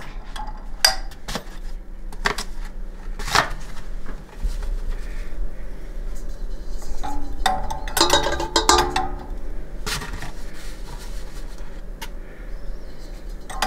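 Scattered clinks and taps of a tablespoon against a stainless steel stand-mixer bowl as powdered gelatin is sprinkled over water, over a low steady hum.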